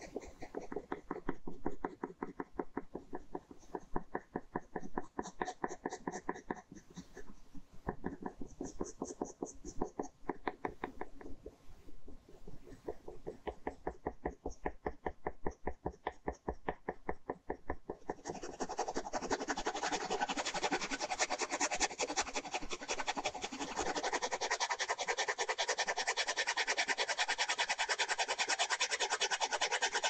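Ballpoint pen scratching across paper in rapid, repeated hatching strokes. About eighteen seconds in, the strokes become denser and louder, an almost continuous scratching.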